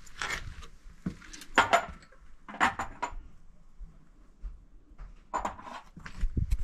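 Metal plumbing parts, flexible lines and compression fittings, being handled and fitted against the pipes: a handful of scattered short metallic clinks and knocks with quiet gaps between.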